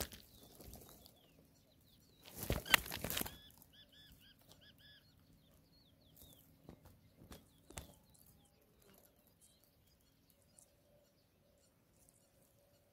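A loud rustle of dry grass, then a quick run of short, arched chirps from a small bird at a ground nest, followed by a few fainter chirps and soft ticks before it goes quiet.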